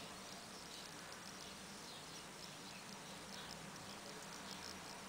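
Faint steady hiss of room tone with a scatter of very soft, short ticks.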